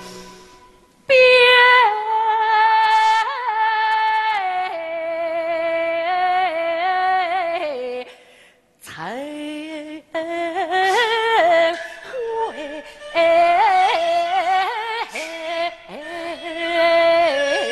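Yue opera music: a slow, ornamented melody with vibrato and sliding notes. It breaks off for a moment about halfway through, then comes back busier.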